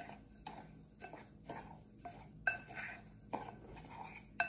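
A spoon stirring a powdered mix of dried banana peel, eggshell and tea leaves in a glass bowl, clinking against the glass about once a second with a faint gritty scraping between the clinks.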